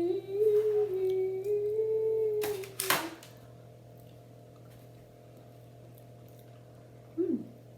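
A person humming a long, wavering "mmm" for about three seconds while tasting a chocolate cake ball, followed by two sharp knocks. Then a steady low hum, with a short falling vocal sound near the end.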